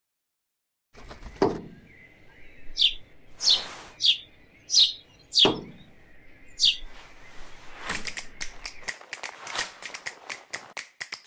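Female northern cardinal giving about six sharp, downslurred chip calls, with a couple of dull thuds among them. Near the end comes a quick run of light taps.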